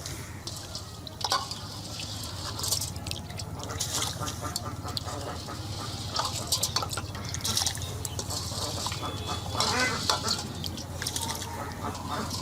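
Pot of water at a boil with basmati rice just added, bubbling and splashing in uneven spurts over a steady low hum.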